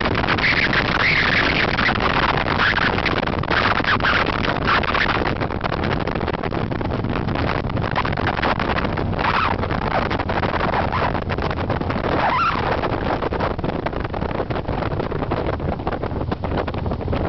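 Motorcycle riding at road speed: wind buffeting the microphone over the steady drone of the engine and tyres.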